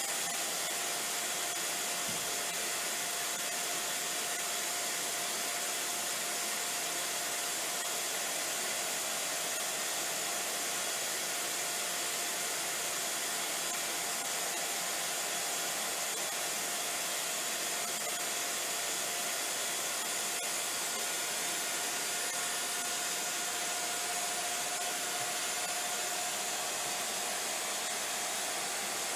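Hardinge GX-1000 CNC vertical machining centre's spindle running steadily without cutting: an even airy hiss with a steady whine.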